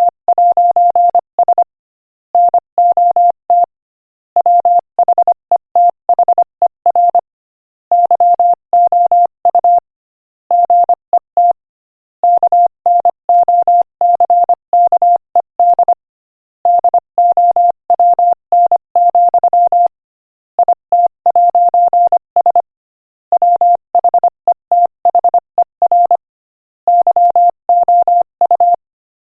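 Morse code sent at 25 words per minute: a single steady mid-pitched tone keyed on and off in quick dots and dashes, with short pauses between words.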